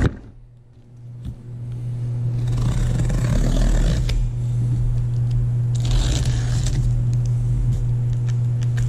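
Utility knife blade slicing the packing tape along the seam of a cardboard box: a scraping, tearing hiss in two long strokes, over a steady low hum.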